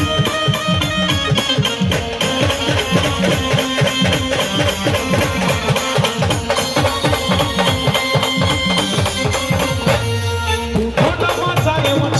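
Khandeshi brass band playing an Ahirani folk tune instrumentally: wind instruments holding the melody over fast, dense drumming. Near the end the drums drop out for about a second under a low held tone, then come back in.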